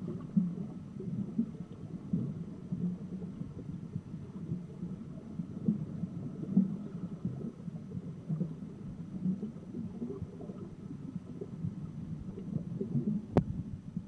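Muffled underwater rumbling and gurgling of water and air bubbles, heard through the camera's underwater housing, with one sharp click about a second before the end.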